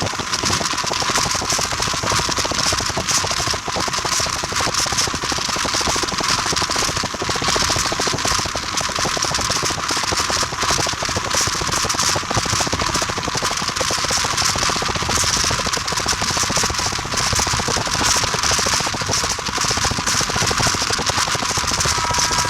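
Train in motion: a steady, dense rattling and rushing noise with rapid fine crackle, running unbroken throughout.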